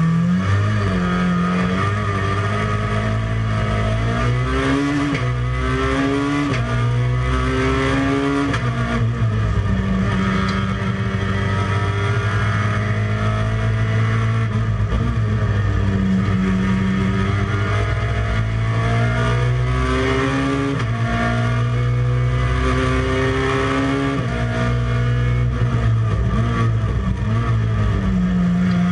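Peugeot 106 race car's 1.4-litre four-cylinder engine at full racing effort, heard from inside the cockpit. It revs up through the gears with a sharp drop in pitch at each upshift in the first several seconds, then keeps rising and falling in pitch as the driver lifts off and accelerates again.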